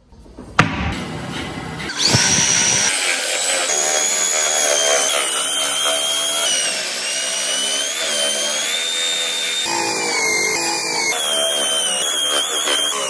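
Small wood lathe running with a chisel cutting a spinning wooden blank, starting about two seconds in: a steady high whine whose pitch drifts up and down as the tool bites.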